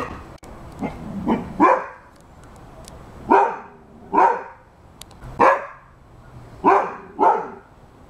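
A Rhodesian Ridgeback barking repeatedly: about nine barks at an uneven pace, several coming in quick pairs.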